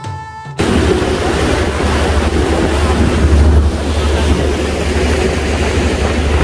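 Passenger ferry under way at speed: wind buffeting the microphone over a steady low rumble of the boat's engines and water rushing along the hull and wake. Background music cuts off about half a second in, where the loud wind and water noise begins.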